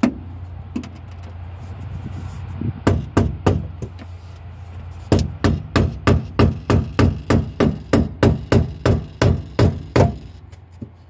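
A screwdriver tapping a fuel pump's lock ring round to lock it in the tank: three taps, then an even run of about seventeen sharp taps at roughly three a second. The ring is being driven over its hump into the locking slots.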